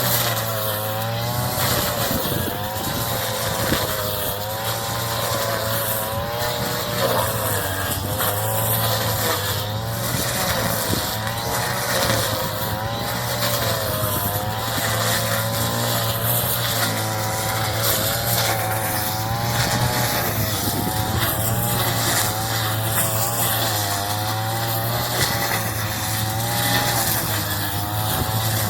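Engine of a straw-cutting machine running continuously while cutting rice straw, its pitch dipping and recovering every second or two as the load changes.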